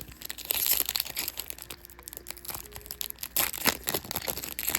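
Foil Yu-Gi-Oh booster pack wrapper crinkling as it is handled, a dense run of crackles that is loudest about half a second in and again after three seconds.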